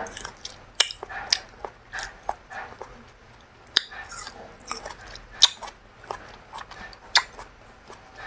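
Close-miked mouth sounds of a person eating braised meat by hand: wet chewing and lip smacks with irregular sharp clicks every second or so.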